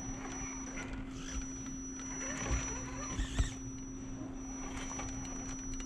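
Axial SCX10 scale RC crawler's small electric motor and geartrain whining as it crawls up a rock section. There are a couple of knocks about halfway through.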